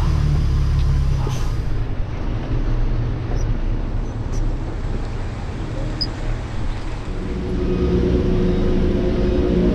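Truck's diesel engine running low as the rig creeps slowly in the cab, with a few light knocks. About seven seconds in a steadier, higher engine note comes in and the sound grows a little louder.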